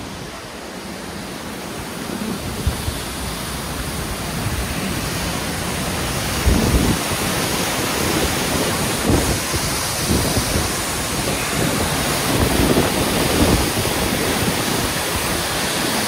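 Grey Mare's Tail waterfall pouring down, a steady dense rush of falling water that grows louder, with irregular low rumbles of wind buffeting the microphone.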